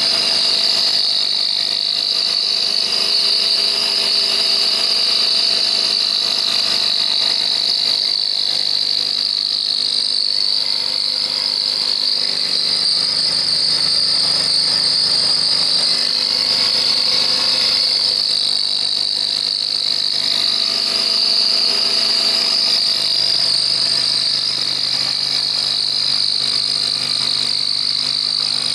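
Central Machinery 44991 (X2-type) mini mill running on a belt-drive conversion at about 755 rpm while cutting aluminium. It makes a steady high-pitched whine with a fainter even hum beneath it.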